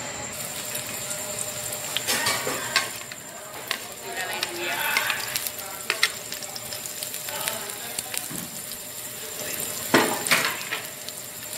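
Garlic sizzling as it fries in hot oil in an aluminium pot, with scattered clinks of a utensil against the pot and one loud knock about ten seconds in.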